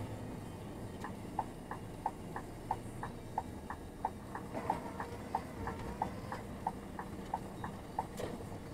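A truck's turn-signal indicator ticking about three times a second in the cab over the low rumble of the engine, as the truck slows and turns off the road. A single sharper knock near the end.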